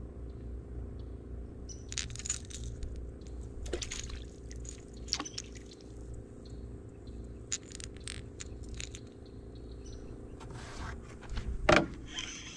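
Scattered clicks and light scrapes from handling a baitcasting rod and reel, over a steady low hum, with one louder knock near the end.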